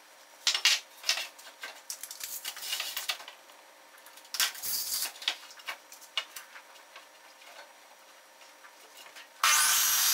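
Knocks and clatter of a pine board being handled and set against a Craftsman 12-inch miter saw's fence. Near the end the saw's motor starts with a loud, quickly rising whine.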